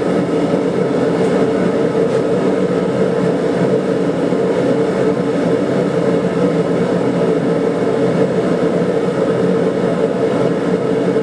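Blacksmith's forge running: a loud, steady, deep rushing noise that does not change.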